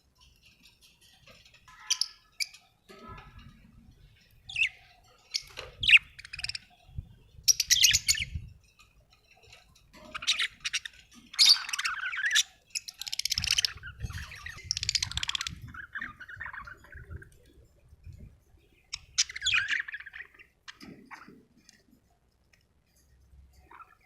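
Budgerigar chirping and chattering in irregular bursts of short, scratchy calls, with short pauses between the bursts.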